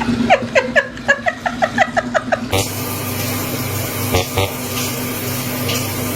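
A person laughing in a quick run of about ten short falling 'ha' sounds for the first two and a half seconds, followed by a steady hiss.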